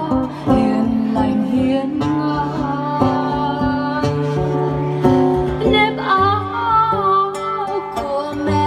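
Acoustic guitar accompanying a woman singing a Vietnamese song into a microphone; her voice wavers with vibrato from about six seconds in.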